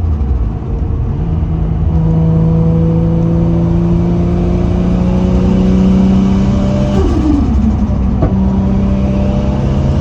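Turbocharged Nissan RB25DET inline-six, running through an HKS TO4Z turbo and HKS 409 exhaust with no blow-off valve, pulling under load: the engine note climbs slowly for several seconds, drops sharply about seven seconds in, then climbs again. A single short click sounds about a second after the drop.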